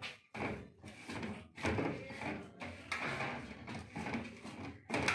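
Hands kneading a big batch of dough in a large metal bowl: repeated pushes about once a second, with the bowl rubbing and knocking against the countertop.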